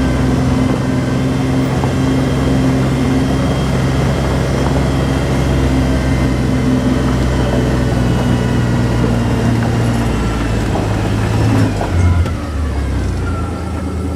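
Vehicle engine running steadily under way, then dropping in pitch about twelve seconds in as it slows toward idle.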